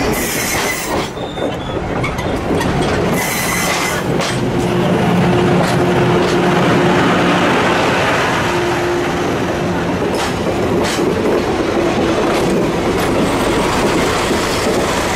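Trolley train of 12-series coaches rolling slowly past close by, wheels clacking over the rail joints and squealing against the rails, with the DE15 diesel locomotive passing near the end.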